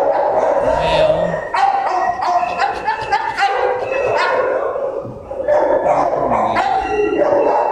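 Many dogs barking and yelping at once in shelter kennels, a loud, overlapping din with a brief lull about five seconds in.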